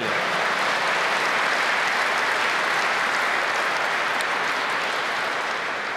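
A large seated audience applauding, a dense steady clatter of many hands that eases off near the end.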